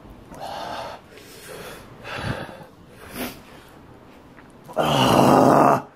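A man breathing hard and groaning in pain from the burn of a Carolina Reaper chili: several short, sharp breaths, then a loud groan about a second long near the end.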